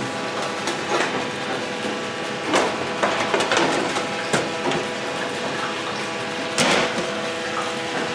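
Working commercial kitchen: a steady machine hum with scattered sharp knocks and clatters, the loudest about two-thirds of the way through.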